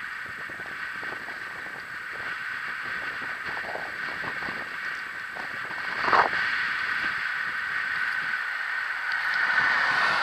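Longboard wheels rolling steadily on asphalt, with faint clicks over the pavement and a louder bump about six seconds in.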